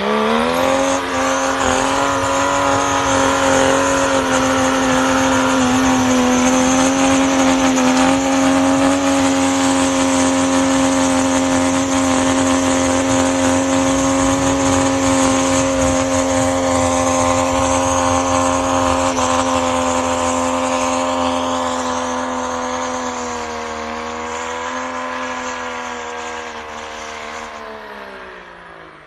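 Mercedes OM606 straight-six diesel in a Land Rover Defender, held at high revs as the truck climbs through deep snow with its wheels spinning. The engine note stays high and steady, then drops in pitch and fades over the last few seconds as the truck pulls away.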